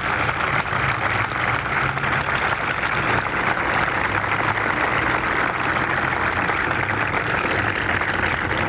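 Large crowd applauding: dense, steady clapping that eases off at the very end.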